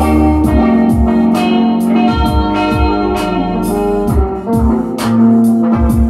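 Live electronic jam: a Roland TR-8S drum machine plays a steady beat of pitch-dropping kicks and hi-hats under held synth bass and keyboard chords, with electric guitar.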